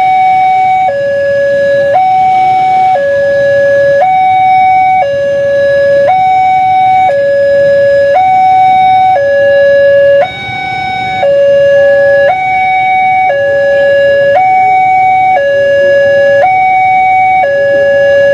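Railway level-crossing warning alarm played through a TOA horn loudspeaker: a loud electronic two-tone signal alternating between a higher and a lower pitch, each tone held about a second.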